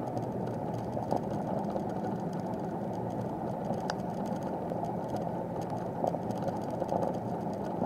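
Steady wind and rolling rumble on the microphone of a camera riding on a moving bicycle, with a faint click about halfway through.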